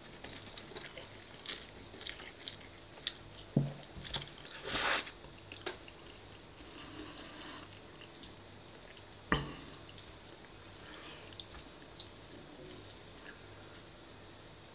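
Faint, close-miked eating sounds: wet mouth clicks and smacks while chewing spaghetti bolognese, with a few sharper clicks and one brief louder rush of noise about five seconds in.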